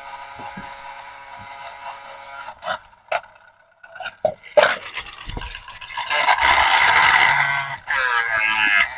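Handling noises: a few scattered clicks and knocks, then from about six seconds in a loud, continuous scraping and rustling.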